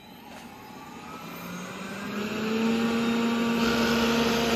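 Roborock robot vacuum starting a cleaning run: its motors spin up with a rising whine that settles into a steady hum, and about three and a half seconds in a louder rushing noise of the suction fan comes in.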